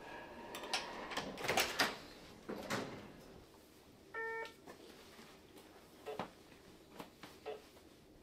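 Door handled and opened: a run of latch clicks and knocks in the first three seconds. About four seconds in comes one short electronic beep, followed by a few faint light clicks.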